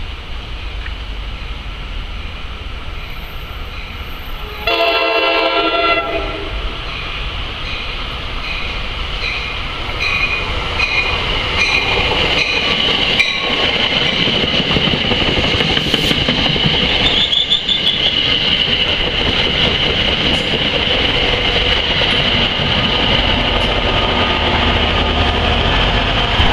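NJ Transit push-pull commuter train arriving at a station: its horn sounds one chord blast of just over a second about five seconds in, over a steady low rumble. Then comes rolling noise, with wheels clicking evenly over rail joints, and from about halfway a steady high squeal as the train slows to stop at the platform.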